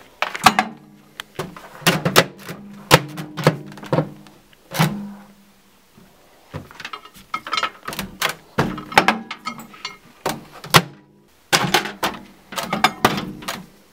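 Irregular knocks and clattering as objects are set into a microwave oven and its door is handled, some knocks followed by a brief low ring.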